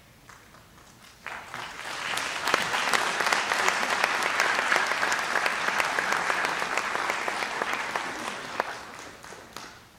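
Audience applauding, starting about a second in, swelling to a steady clatter of many hands, then dying away near the end.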